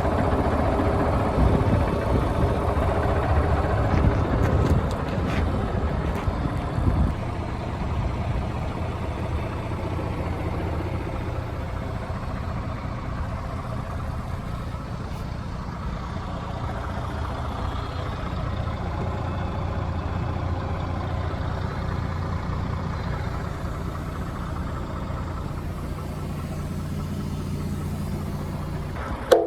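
Iveco Trakker 380 8x4 concrete mixer truck's diesel engine running. It is louder and rougher for about the first seven seconds, then settles to a steady idle.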